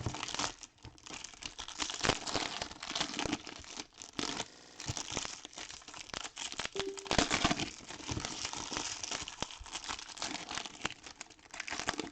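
Trading-card pack wrappers crinkling and tearing as packs are opened by hand, in a dense, irregular run of crackles.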